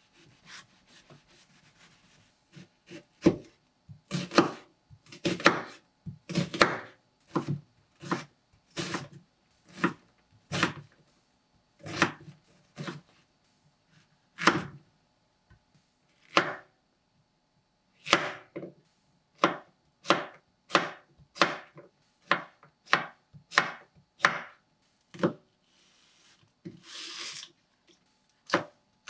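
Kitchen knife slicing onion, Korean zucchini and green onion on a wooden cutting board: a long run of separate knife strikes on the board, about one or two a second, with short pauses between vegetables. A brief rustling scrape comes near the end.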